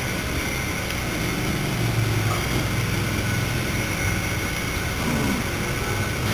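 A steady low mechanical hum with room noise, level and unchanging throughout.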